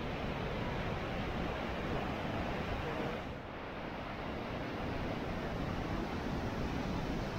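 Steady rushing roar of a waterfall on the Yellowstone River, with a brief dip about three and a half seconds in.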